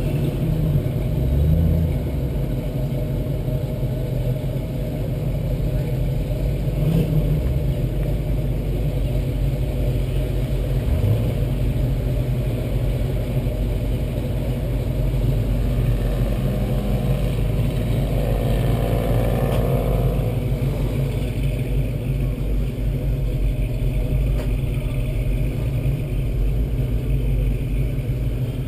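Turbocharged 2007 Ford Mustang's 4.0-litre V6 idling steadily with a low rumble while the car stands still. About two-thirds of the way in there is a brief rise in engine sound.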